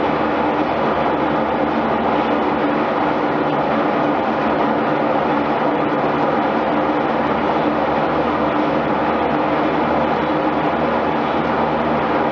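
Steam-engine-driven overhead line shafting and pulleys in a cotton weaving shed running steadily, with belts driving down to Lancashire looms: a loud, even mechanical din with a constant hum.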